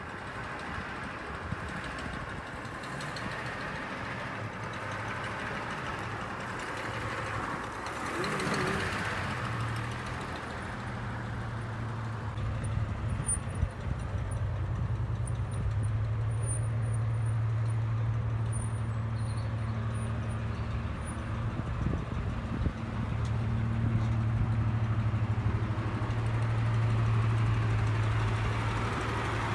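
1933 Rolls-Royce Phantom II's straight-six engine running steadily at low speed as the car drives slowly, an engine just brought back to life after 44 years laid up. Its low even hum grows louder about a third of the way in and again near the end.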